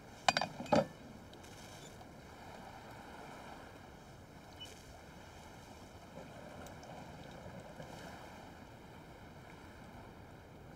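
Steady seaside wind and surf noise, with a few faint soft knocks through the middle.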